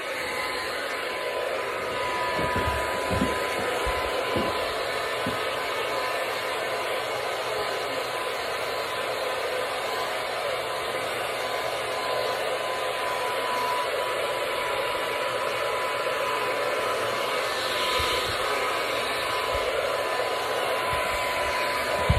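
Handheld hair dryer running steadily, blowing warm air over a dog's wet fur, with a thin steady whine over the rush of air. A few brief low bumps sound against it, a few seconds in and again near the end.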